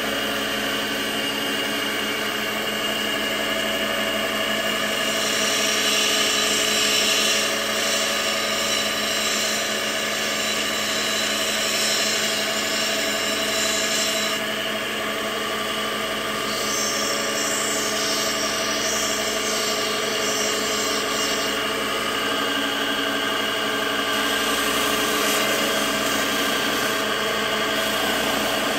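Wet lapidary grinding wheels running with a steady motor hum and a gritty hiss as a rough turquoise nugget is ground against a water-fed spinning wheel. The grinding hiss swells and eases as the stone is pressed on.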